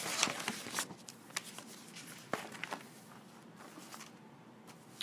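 Quiet room sound of a pause at a live reading: scattered small clicks and rustles, busier in the first second, with one sharper click a little over two seconds in.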